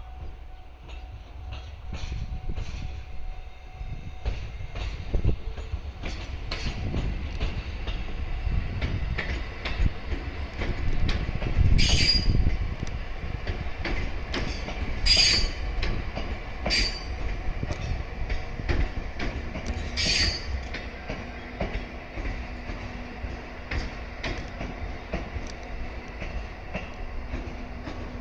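JR East E751 series electric train running over the rails: a low rumble with clicking wheels over the track, and four short, sharp wheel squeals in the middle.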